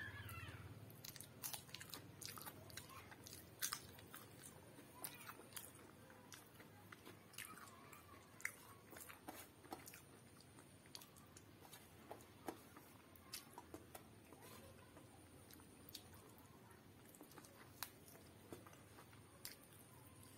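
Close-up mouth sounds of a person eating chicken curry and rice by hand: soft chewing with scattered short clicks and smacks, all fairly faint.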